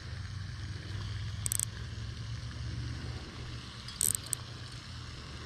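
Baitcasting reel's drag buzzing briefly, twice, as a big hooked fish pulls line off, over a steady low hum.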